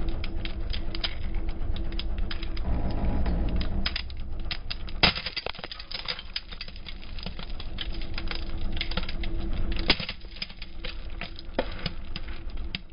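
Plastic bottles packed with Orbeez water beads being crushed under a car tyre on asphalt: a rapid, irregular run of sharp cracks and pops as the plastic gives way and beads spill and burst. The two loudest cracks come about five and ten seconds in.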